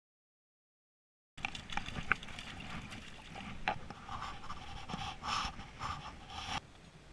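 Dead silence for the first second and a half, then scattered handling clicks and rustles, followed by a person's heavy breathing close to the microphone, several breaths over about two seconds, which cuts off abruptly near the end.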